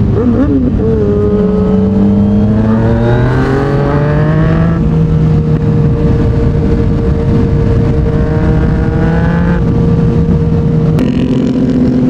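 Yamaha MT-09's inline-three engine through a Yoshimura R55 slip-on exhaust, with the bike under way: the engine note climbs steadily for the first few seconds as it accelerates, then holds steady at a cruise, and drops to a lower note near the end.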